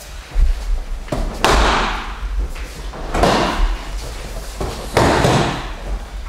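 Bodies hitting a padded dojo mat in aikido breakfalls: three thuds about two seconds apart, each trailing off in a short rustle of gi and hakama on the mat.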